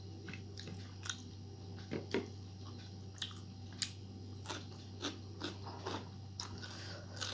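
Close-up eating sounds of a person chewing rice and curry eaten by hand: wet mouth clicks and lip smacks, with crisp crunching bites of raw cucumber.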